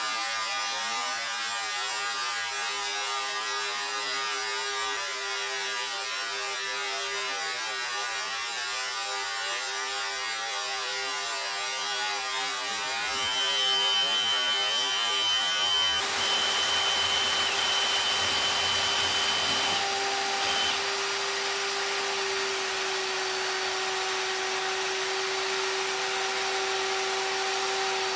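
Small metal lathe running under power with its spindle turning: a steady motor and gear-train hum with hiss, and a thin high tone from about halfway through for several seconds.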